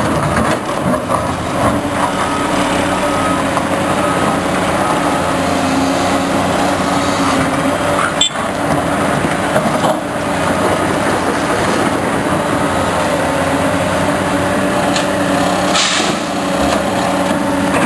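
Heavy construction machinery working: steady loud engine noise, with a repeating beep in the first few seconds and a sharp knock about eight seconds in.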